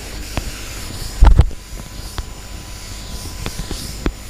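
Board duster rubbing chalk off a chalkboard, a steady hiss with a few sharp clicks, and one loud thump about a second in.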